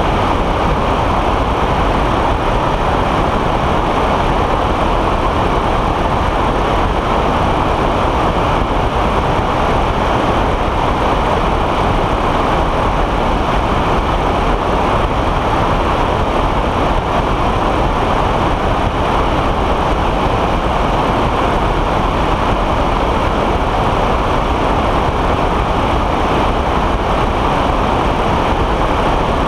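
Steady, loud rush of wind and engine noise from a weight-shift microlight trike in cruising flight, heard through a camera mounted on its wing, with wind blowing across the microphone.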